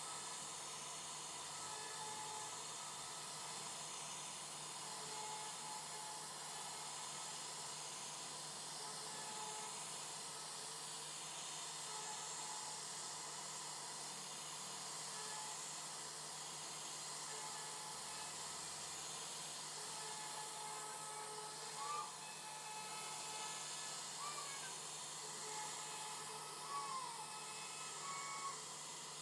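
CNC router carving wood: a steady hiss of the spindle and cutting, with a low steady hum underneath. A few short faint chirps come through in the last third.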